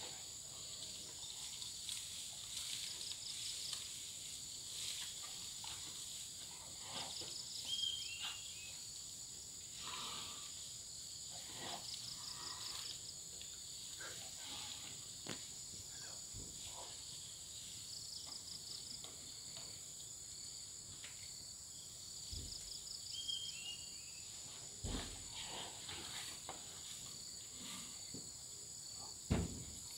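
Tropical rainforest insect chorus: a steady high-pitched drone, with a short pulsed trill repeating every few seconds. Two brief falling whistles and a few low thumps in the last third.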